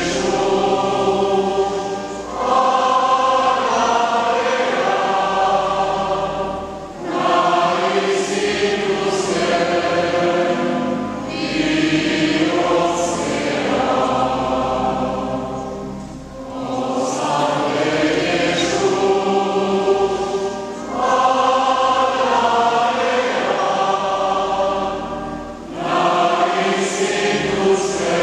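A choir singing in sustained phrases of about four to five seconds, with short breaks between them.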